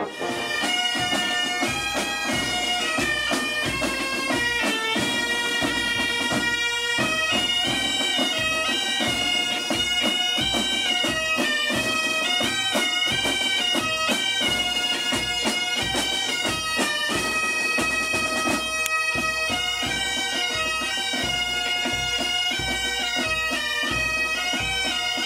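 Asturian bagpipes (gaitas) playing a tune over their steady drone, with drums beating along.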